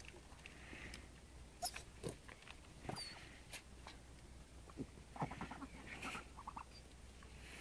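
A flock of white domestic ducks feeding at close range: faint, brief low calls a few times, with scattered small clicks and pecks.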